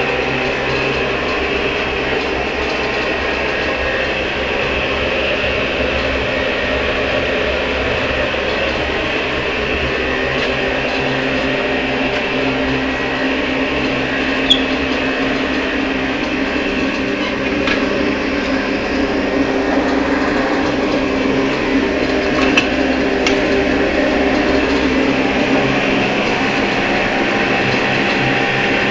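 Homemade waste-motor-oil furnace running: a steady mechanical hum with a few faint clicks.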